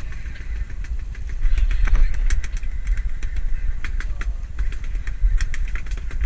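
Steady low rumble of a boat under way, running at trolling speed, mixed with wind on the microphone. Irregular sharp ticks and splashes come through, densest in the middle.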